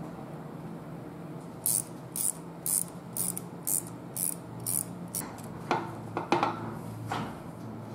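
Ratcheting wrench turning a new bolt into a Ford 8.8 differential carrier: short bursts of ratchet clicking about twice a second. Then a few metal clinks near the end.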